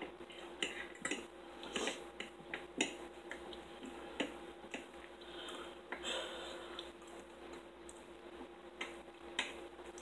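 Eating at a table: forks clicking and scraping on plates, with chewing, as scattered, irregular small clicks over a faint steady hum.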